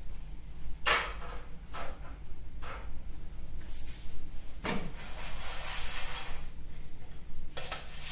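Kitchen handling noises while stuffed pita bread is being assembled: three short scrapes about a second apart, then a longer rustle lasting about two seconds, and another starting near the end.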